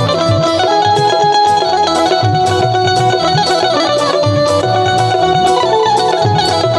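Instrumental interlude in a bhajan: an electronic keyboard with a plucked, banjo-like tone plays the melody over steady hand-drum beats from tabla and dholak.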